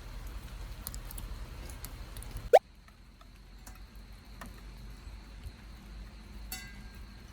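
Rain pattering with scattered drip ticks, broken about two and a half seconds in by a brief, very loud rising squeak-like tone. After it the rain is much quieter, with a few faint ticks.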